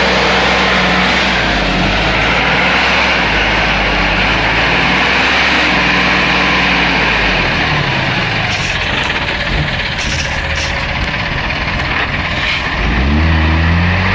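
Heavy logging truck's diesel engine working under load, its note shifting up and down over a constant noisy rumble, rising near the end.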